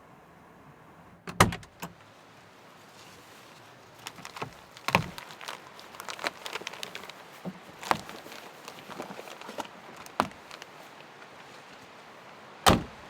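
A string of knocks and clatters from objects being handled, with heavy thumps about a second in, around the middle and just before the end, and busier rattling in between.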